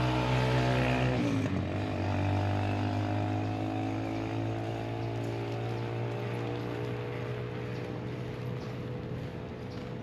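Motorcycle engine passing by, its pitch dropping about a second in, then fading steadily as it moves away.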